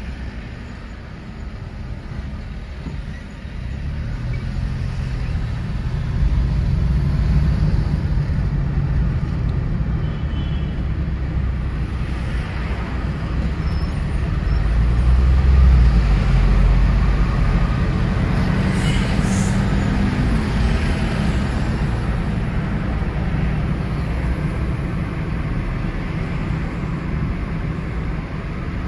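2014 Nissan Micra driving on the road: engine and tyre noise with the engine note rising and falling as speed changes, loudest a little past halfway through.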